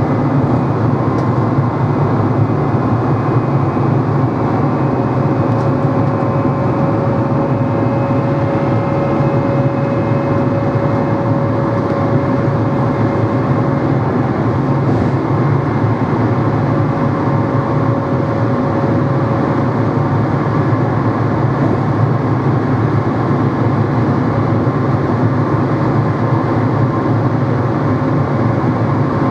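NMBS/SNCB AM96 multiple unit's motor running steadily: a dense, even hum with a thin steady whine over it.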